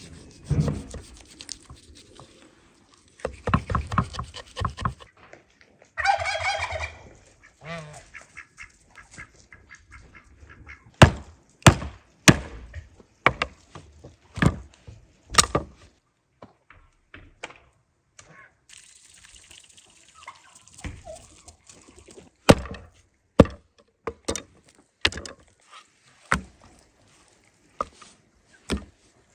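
Farmyard poultry calling, with one warbling call about six seconds in, then a long run of sharp, irregular knocks and clatters.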